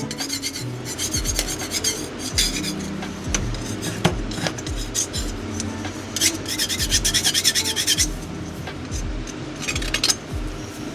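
Excess dried casting investment being scraped and rasped off a casting flask to leave a smooth surface, in quick runs of scraping strokes, the longest run about two-thirds of the way through.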